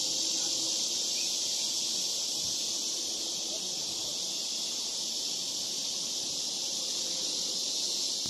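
Chorus of summer insects, a continuous high-pitched shrill buzz that holds at a steady level.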